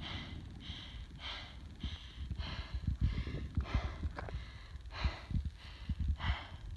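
A hiker's heavy, fast breathing while climbing a steep mountain trail, a quick regular rhythm of breaths, with low thuds underneath.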